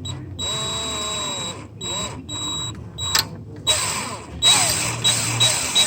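Power drill driving a bit into a seized EGR bolt, run in several short trigger bursts of about half a second to a second and a half, each with a high steady whine.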